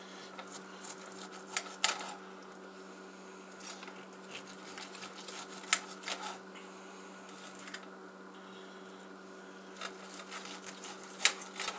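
A knife and fork clicking and scraping on a plate while slicing rolled meat, in scattered sharp ticks, over a steady low hum.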